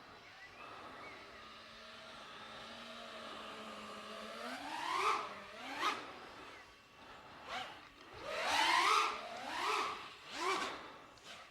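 Five-inch FPV freestyle quadcopter's brushless motors whining, steady at first, then punched up repeatedly from about halfway through, the pitch sweeping upward with each throttle punch.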